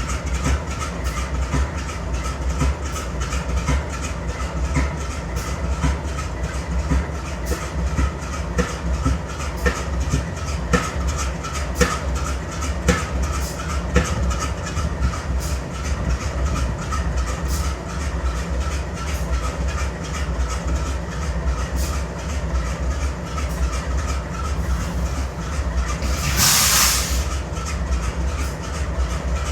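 GE C44-9W diesel locomotive's 16-cylinder engine idling unevenly, with irregular sharp ticks over a steady low hum: a misfire, the sign of engine trouble. A short burst of air hiss comes near the end.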